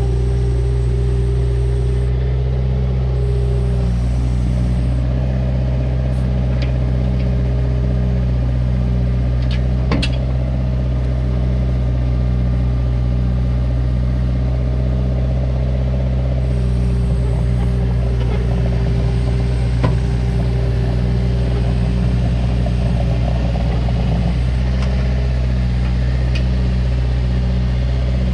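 Bobcat 331E compact excavator's diesel engine running steadily while the machine works. A whine sits on top of the engine note, stepping up in pitch about five seconds in and dropping back about eleven seconds later. A couple of sharp knocks come through, near the middle and about two-thirds of the way in.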